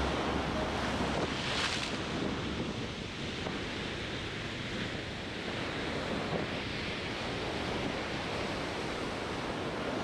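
Sea waves breaking and washing up on the shore in a steady rush, with one wave surging louder about a second and a half in. Wind buffets the microphone.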